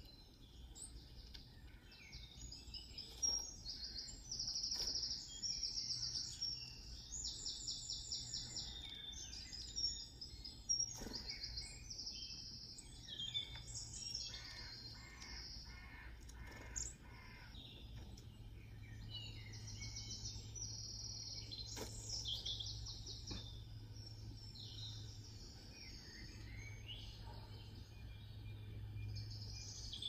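Small songbirds chirping and trilling in a steady stream of calls, played from a garden-bird video through laptop speakers.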